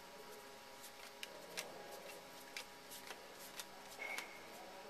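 Baseball trading cards handled and sorted through by hand, making faint, scattered light clicks and ticks.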